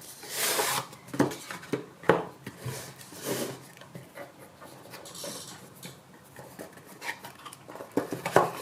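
Phone boxes and packaging being handled and opened: irregular rustling, scraping and light knocks, with a louder rustle about half a second in and knocks near the end.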